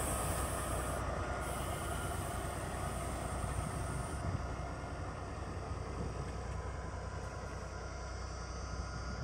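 Railway overhead-equipment inspection car running along the track and moving away, a steady low rumble that slowly grows quieter.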